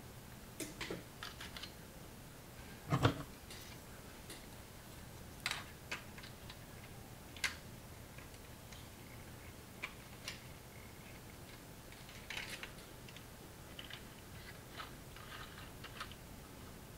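Mega Bloks plastic building bricks being handled and snapped together: scattered small clicks and ticks in short clusters, with one heavier knock about three seconds in.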